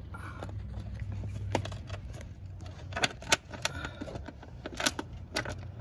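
Irregular sharp clicks and knocks of hardware and car parts being handled while the parking lamp assembly is bolted on from under the car. The clicks fall unevenly, several in quick succession around the middle.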